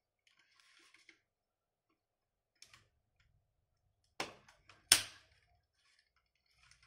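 Hard plastic parts of a 1:18-scale transforming mech toy being handled, with faint light clicks, then two sharp snaps about four seconds in, under a second apart, the second the louder: parts clipping into place as the mech is folded into tank mode.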